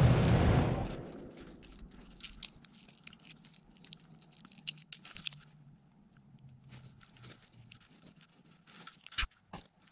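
A loud rushing noise fades out within the first second, then scattered faint clicks and taps of metal parts being handled on a drill grinder, with two sharper knocks near the end.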